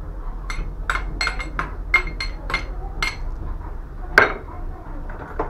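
Spoon clinking against a small bowl in a quick run of taps, knocking grated cheese out into a mixing bowl, then one louder knock about four seconds in.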